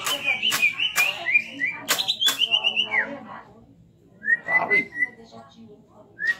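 Cucak ijo (green leafbird) singing: a quick run of loud whistled notes mixed with sharp chips for about three seconds, then a pause, a short whistled phrase, and another phrase starting at the very end.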